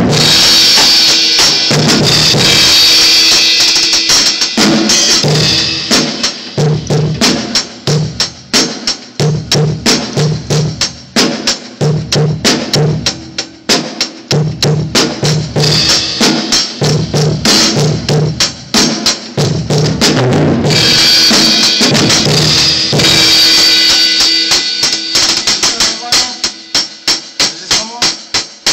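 Drum kit being played for a sound check: a run of kick and snare hits with cymbals crashing over them near the start and again about two-thirds of the way through, and quicker, denser strokes toward the end.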